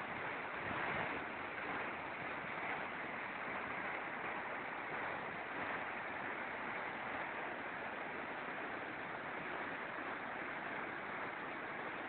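Whitewater of the Belaya River rushing over rock ledges in its canyon: a steady, unbroken rushing noise.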